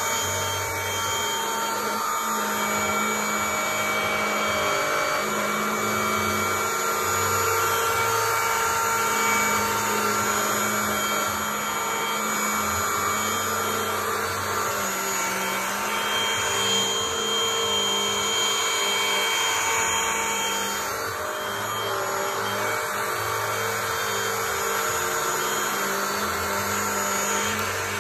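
Cordless stick vacuum cleaner running steadily, its motor giving a constant whine with a lower hum that comes and goes.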